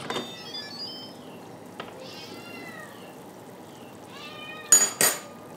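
A domestic cat meowing twice, each call rising and falling in pitch. Near the end come two loud sharp clunks as the Instant Pot's lid is twisted open and lifted off.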